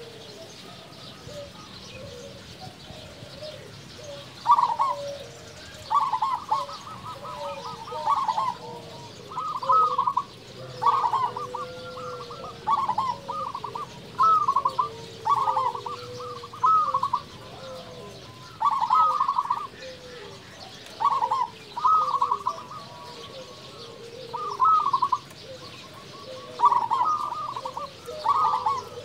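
Zebra dove (perkutut) cooing: short, rapidly pulsed trilling coos that begin about four seconds in and then repeat roughly once a second, with brief pauses between groups. Softer, lower calls of other birds run underneath.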